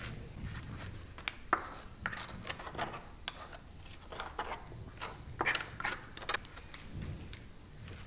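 Metal putty knife scraping and clicking against a small metal bowl as filler paste is mixed and scooped up: a run of short, irregular scrapes and clinks.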